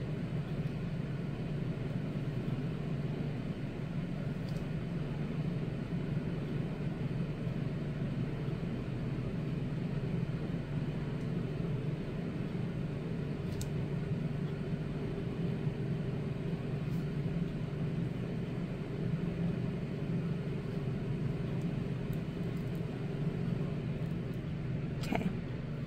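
A steady low machine hum, like a room fan or air conditioner running, with a few faint clicks.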